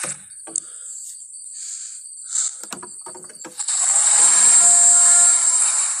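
Iguanodon bellow sound effect: after a few faint clicks, a loud drawn-out bellow with a steady low pitch and a hissy top starts about three and a half seconds in and lasts about two seconds.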